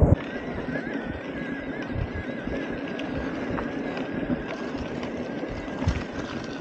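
Electric mountain bike riding a dirt trail: a steady, slightly wavering whine from its Bosch mid-drive motor, with scattered clicks and rattles from the bike over the ground.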